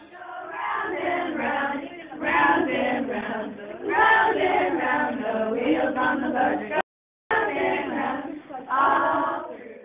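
A small group of adults, women's and men's voices mixed, singing a song together. The sound cuts out completely for about half a second about seven seconds in.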